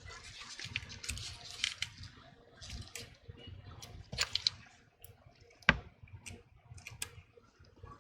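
Small clicks, taps and soft scraping of repair tools and small parts being handled on an opened iPhone 12, with one sharper click a little before six seconds in.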